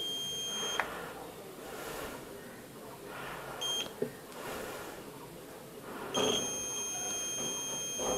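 Digital multimeter's continuity buzzer sounding a steady high beep as its probes bridge a motherboard capacitor. The beep stops under a second in, sounds again briefly midway, and comes back as a long beep about two seconds before the end. The unbroken beep across the capacitor marks a short, which the technician takes for a shorted capacitor.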